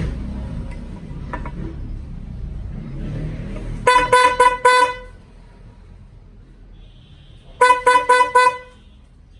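Bosch Evolution car horn sounded in two quick bursts of four short toots each, about four toots a second, the first burst about four seconds in and the second about three seconds later. A low rumble runs under the first few seconds before the toots.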